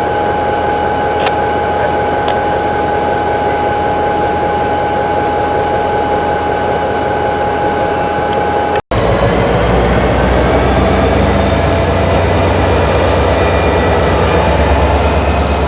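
Diesel locomotive running in a rail yard, a steady noise with a constant whine over it. About nine seconds in the sound drops out for an instant, then resumes as a louder, deeper engine rumble.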